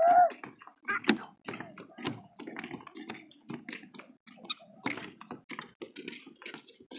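Footsteps of several people, adults and small children, walking on a wooden boardwalk: a steady run of irregular taps and knocks, a few each second.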